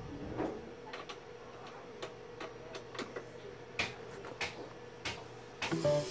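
Scattered faint clicks and light taps over a steady low hum. Background music begins near the end.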